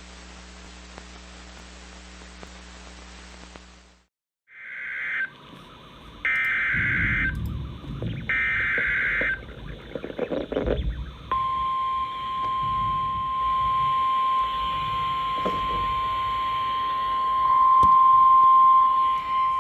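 Radio receiver static with a low hum, then after a brief dropout three one-second bursts of the SAME digital header data tones of an emergency alert. Then the long, steady 1050 Hz NOAA Weather Radio warning alarm tone starts, getting louder near the end, announcing a weather warning.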